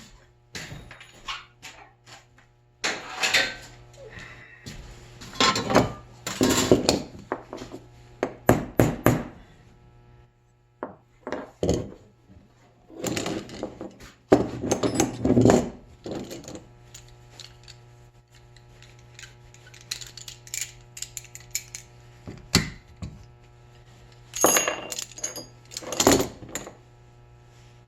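Small metal parts clinking and scraping in irregular bursts as a hand-made bent stainless-steel piece is worked onto the ice maker's auger drive, with a steady low hum underneath.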